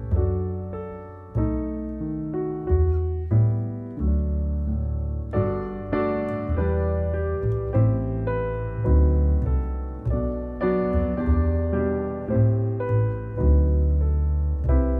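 Background piano music: a steady run of struck notes, each fading, over a bass line.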